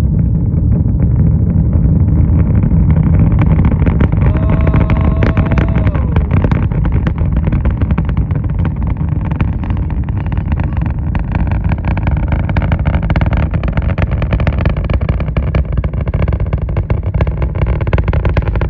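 Deep rumble of SpaceX Starship's Super Heavy booster engines climbing after liftoff, with a dense crackle that builds from about four seconds in.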